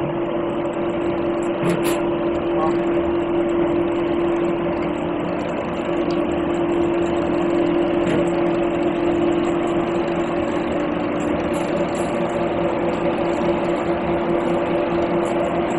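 Screw oil expeller running, a steady machine hum with one constant mid-pitched tone over a noisy churn, and a few faint ticks.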